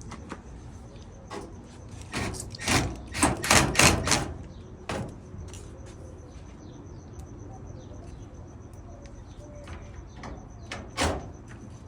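A quick run of sharp knocks and clatter, with another knock near the end: the clothes dryer's panels and parts being handled and fitted back together during reassembly.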